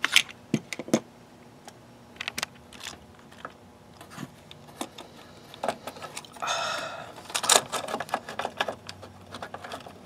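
Scattered small clicks and knocks of a DiversiTech CC-1 Condensate Cop float switch being handled and fitted onto the lip of the air conditioner's metal drain pan by hand, with a short scrape about six and a half seconds in.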